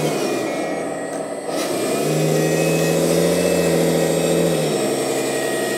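1/14 metal hydraulic RC articulated dump truck driving forward in low gear. Its hydraulic pump whines steadily, and a louder pitched drive hum swells about two seconds in, holds, then drops back about two and a half seconds later.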